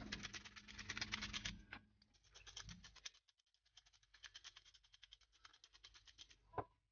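Hand-twisted salt grinder grinding over raw pork: fast, even ratcheting clicks in two bouts, the first louder, then a single knock near the end.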